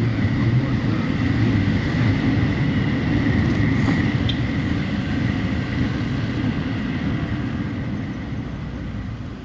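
Riding noise of a small scooter heard from a helmet camera: the engine running under a steady rush of wind over the microphone. The noise eases off near the end as the scooter slows.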